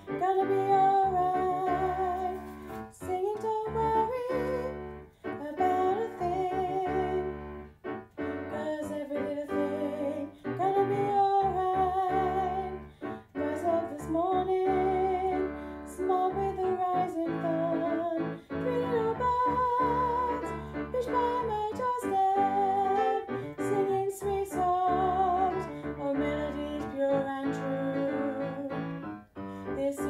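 Female singing of an alto choir part over piano accompaniment, held notes sung with vibrato in phrases separated by short breaths.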